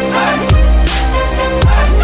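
Electronic dance music with a heavy bass note hitting about once a second, sharp drum hits between them, and a synth melody that slides up and down.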